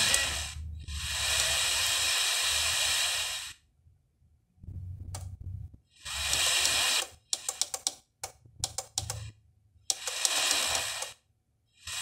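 FM radio static hiss from a Car Audio System HW-26249A car radio as it steps down the FM band, finding no station. It comes in blocks of a second or two, cut off abruptly by silences, with a run of quick short bursts in the middle, as the receiver mutes between frequency steps.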